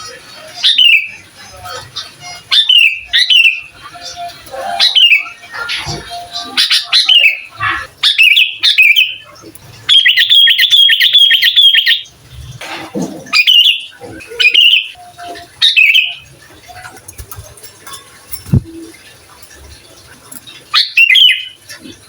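Sooty-headed bulbul singing: short, loud phrases of notes falling in pitch, repeated every second or two, with a fast two-second run of rapid notes about ten seconds in.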